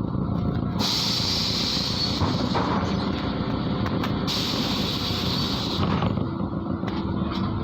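MAZ-103 city bus heard on board: the engine and running gear drone steadily, and about a second in the pneumatic system lets out a loud hiss of compressed air. The hiss lasts some three seconds, breaks off for a moment, then hisses again for about a second and a half.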